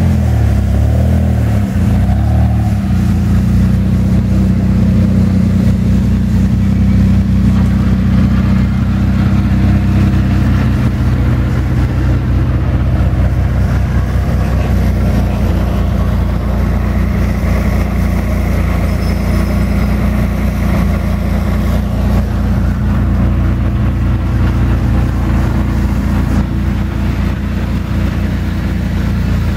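Renault Clio V6 Trophy race car's mid-mounted 3-litre V6 running. The revs settle within the first two seconds, then it idles steadily.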